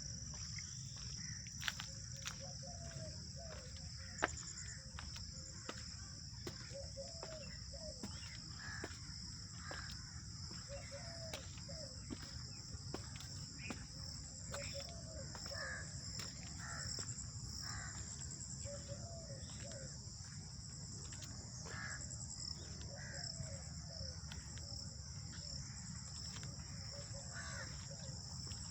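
Outdoor park ambience: a steady high-pitched drone of insects with birds calling over and over, short calls every second or two, over a low background rumble.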